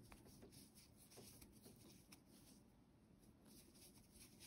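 Near silence, with the faint rustle and small ticks of cotton yarn being drawn through stitches with a metal crochet hook.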